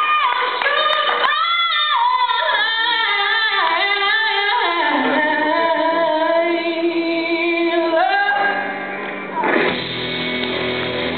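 Live blues: a woman sings long, bending notes over sparse electric guitar, with little bass underneath. About nine and a half seconds in, the bass and drums come back in and the full band plays on.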